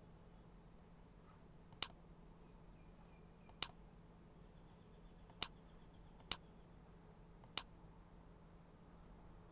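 Five sharp single clicks of a computer mouse button, unevenly spaced, over a faint steady low hum.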